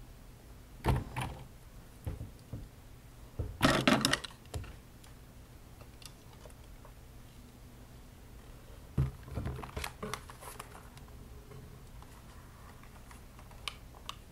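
Handling noise from putting on sunglasses and a headband blindfold: a few brief knocks and rustles about a second in, around four seconds in and again around nine to ten seconds in, with quiet room tone between.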